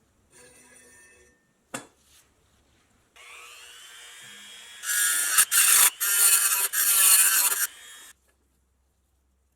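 A small handheld power tool spins up with a rising whine, then bites into the toy's pressed-steel body in loud rasping stretches broken by brief gaps for about three seconds before it stops. A single sharp click comes shortly before.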